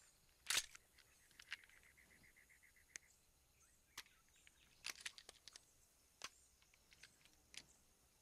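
Near silence: faint outdoor ambience with scattered sharp clicks and a short rapid chirping trill about one and a half seconds in.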